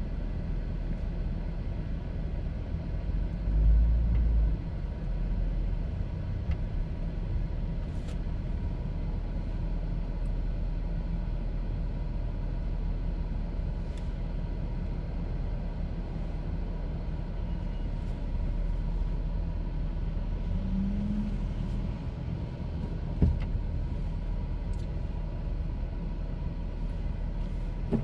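Steady low rumble of a car running, with a brief louder low thud about four seconds in and a single sharp click near the end.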